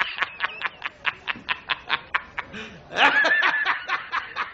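A man laughing hard in rapid, evenly spaced bursts of about seven a second, rising to a higher, drawn-out stretch about three seconds in.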